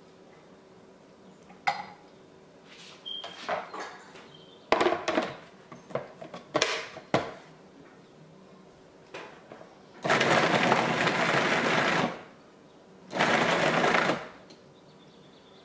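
Plastic lid of a food processor clicking and knocking as it is fitted and locked onto the bowl, then the food processor's motor running in two pulses, about two seconds and then about one second, chopping raw pieces of white fish.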